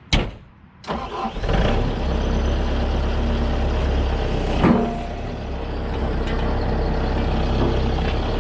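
Diesel engine of heavy recovery equipment running steadily, with one sharp knock about halfway through.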